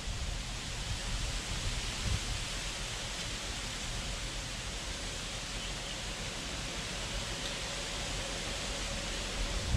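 Steady outdoor hiss of wind and rustling leaves, with low wind buffeting on the microphone.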